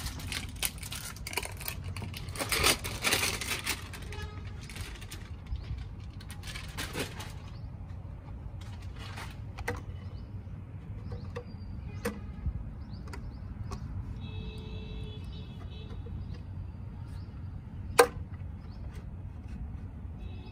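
Handling noises as a metal cylinder-head gasket is laid and shifted on a three-cylinder tractor diesel block: a rustling scrape over the first few seconds, then scattered light clicks and taps, with one sharp click near the end. A low steady rumble runs underneath.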